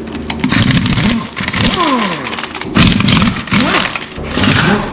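Impact wrench run in about four bursts, its motor speeding up and winding down as it spins lug nuts off a truck wheel. The nuts are only loose on their studs.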